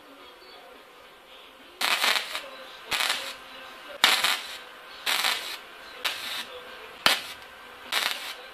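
Gasless MIG welder burning 0.8 mm flux-cored wire on 0.4 mm steel plate, stitch welding: about two seconds in the arc starts crackling in short bursts of about half a second, seven of them about one a second.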